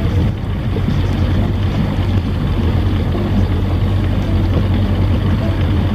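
70 hp Evinrude outboard motor running steadily, a constant low hum over a rushing noise, on a test run after a screw on its fuel pump was tightened to stop it starving for fuel.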